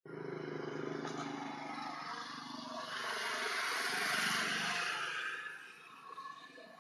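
A motor vehicle going by on the road: an engine hum, then a rush of engine and tyre noise that swells to its loudest about four seconds in and fades away near the end.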